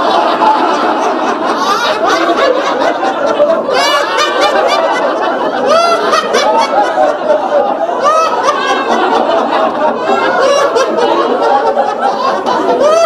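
A group of people laughing together, many voices overlapping without a break: the deliberate group laughter of a laughter yoga exercise.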